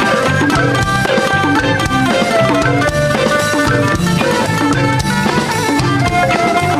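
Background music: a melody on plucked strings over a steady drum beat.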